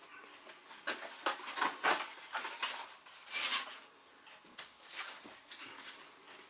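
Rustling and light tapping as paper, cardboard and plastic-wrapped parts are handled. There are scattered small clicks, and a louder crisp rustle about three and a half seconds in.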